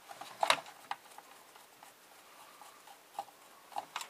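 A few light clicks and scrapes from a hair straightener's plastic housing and parts being handled and pried with a screwdriver, loudest in a short cluster about half a second in, then scattered small ticks.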